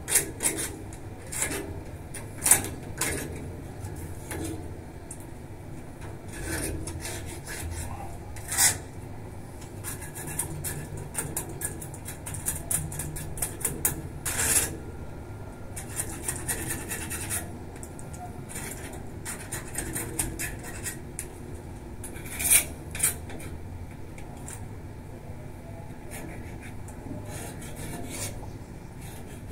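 A hand tool scraping and rubbing along the bars of a wrought-iron balcony railing in irregular strokes, with a few louder, sharper scrapes scattered through.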